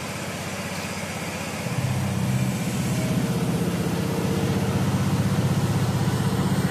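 An engine running with a fast, even low throb, growing louder about two seconds in.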